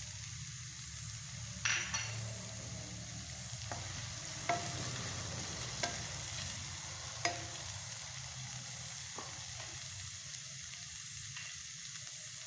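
Chopped okra frying in coconut oil in a stainless steel pan with a steady sizzle, stirred with a wooden spatula that knocks sharply against the pan several times.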